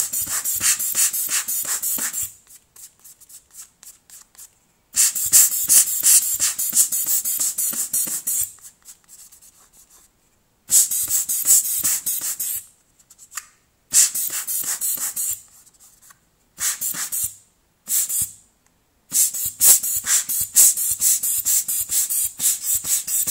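A small hand tool scrubbing grime off the inside of a Cat S60 phone's plastic frame. It makes rapid, scratchy back-and-forth strokes in bursts of one to three seconds, with short pauses between.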